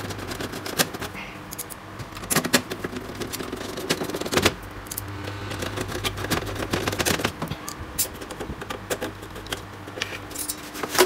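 Screwdriver driving the power supply's mounting screws into a steel computer case: irregular metallic clicks and taps in small clusters.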